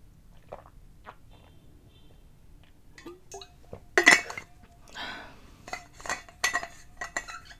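Stainless steel water bottle being handled. A sharp metal clink about four seconds in is followed by a run of smaller clinks and scrapes as the bottle and its cap are worked.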